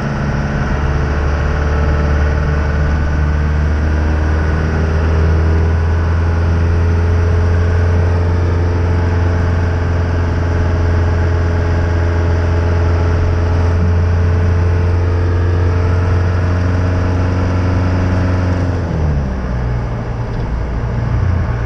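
A 1980s Ford bullnose pickup's engine, heard from inside the cab while the truck is driven at road speed. Its pitch creeps slowly upward for most of the stretch, then drops sharply about three-quarters of the way through as the engine comes off load.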